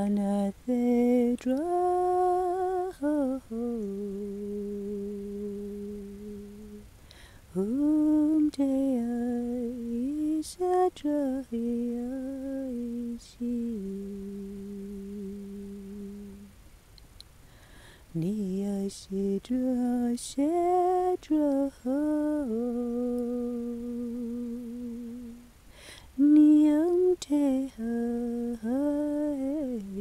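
A person humming a slow, wordless melody in phrases a few seconds long, gliding between notes. Most phrases end on a long held low note.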